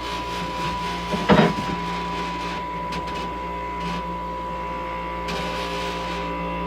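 Bench grinder running steadily with no load, a constant hum with a high whine. A short, louder knock about a second and a half in.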